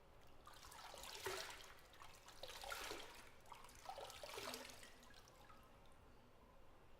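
Bathwater splashing and trickling in three short bursts about a second apart, each lasting about a second; the first is the loudest.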